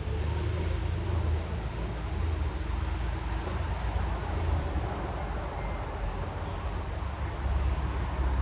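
Steady low outdoor rumble, with a few faint, short high chirps scattered through the middle.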